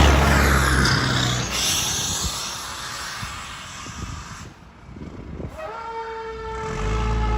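Fire truck air horns blasting in deep steady tones that fade out about two seconds in; a higher steady tone swoops up and holds from about six seconds in, and the low air horns sound again near the end.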